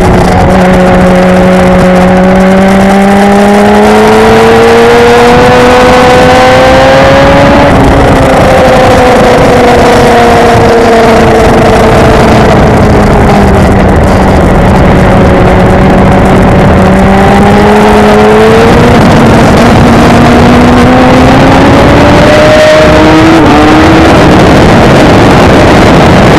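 Yamaha sport motorcycle's engine at track speed, heard from an onboard camera with wind rush. The engine note climbs for several seconds, drops sharply about eight seconds in and falls away as the throttle closes, holds low for a few seconds, then climbs again, with a brief step a few seconds before the end.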